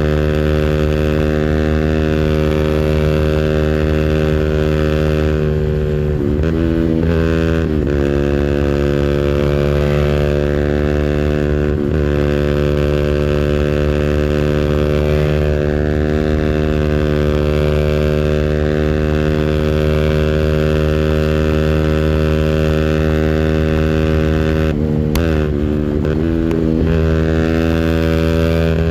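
200cc engine running at high, steady revs held on the rev limiter. The revs briefly drop and climb back twice, about six seconds in and again near the end.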